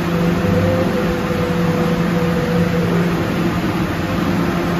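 Kawasaki R211 subway car standing at the platform, its onboard equipment giving a steady hum over a loud rushing noise.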